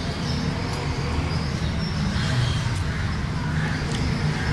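A steady low background rumble. Over it come a few faint clicks as a kitchen knife cuts pieces of king mackerel in a steel platter.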